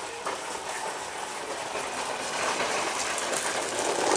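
Wet ground ginger and water being worked through a sieve: a steady, splashy patter of liquid trickling and dripping through the mesh, a little louder near the end.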